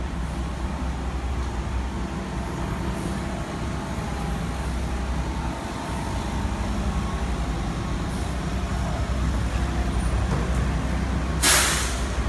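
Delivery truck's engine idling with a steady low rumble, and a short, loud hiss near the end.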